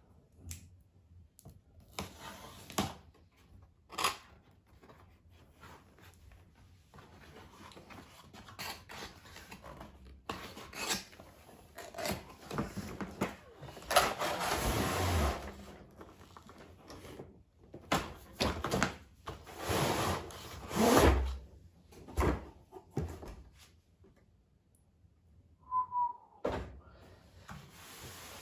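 A cardboard toy-blaster box being handled and opened: scattered knocks and thunks, with longer stretches of cardboard scraping and rubbing about halfway through and again about three-quarters through.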